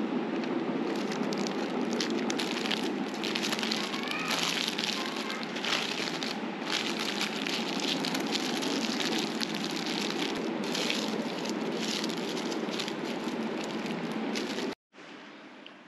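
Steady, dense crackling hiss that cuts off suddenly near the end.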